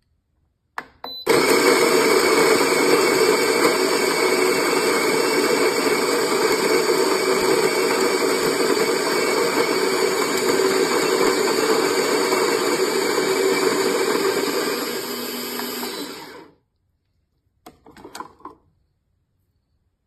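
Electric coffee grinder running, grinding beans: a loud, steady whir that starts just after a click about a second in, gets a little quieter near the end and cuts off after about fifteen seconds. A few brief knocks follow.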